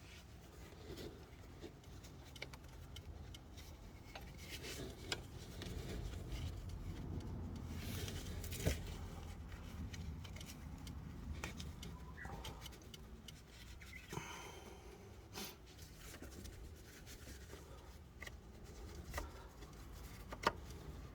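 Hand-work noises: scattered clicks, small metallic clinks, rubbing and scraping over a low rumble, with a short scraping patch about two-thirds of the way through.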